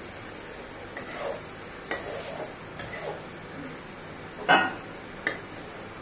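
A spatula stirring a thick curry in a kadai, scraping and clinking against the pan a few times, loudest about four and a half seconds in, over a steady frying sizzle.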